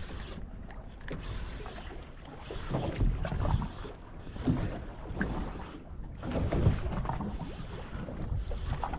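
Water sloshing and lapping against the hull of a small boat, with wind buffeting the microphone; the sound swells unevenly a few times.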